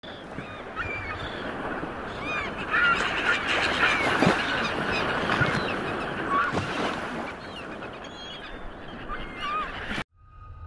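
A flock of birds calling, many short overlapping calls over a steady rushing background, which stops abruptly near the end.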